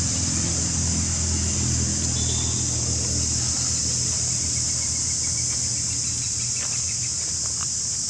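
Steady, high drone of insects with a low, steady rumble underneath, and a few soft rustles of dry leaves near the end.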